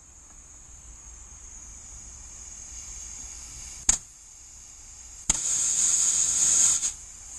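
A sharp click, then a loud hiss of compressed air escaping for about a second and a half, starting again at the very end, over a steady faint hiss. The air is fed into the cylinders of a Chrysler 2.8 CRD diesel to check whether the valves hold.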